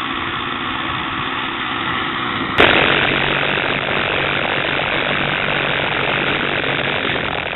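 Radio-control model airplane engine running steadily while warming up. About two and a half seconds in it turns suddenly louder and brighter, heard close up from a camera mounted on the plane's wing.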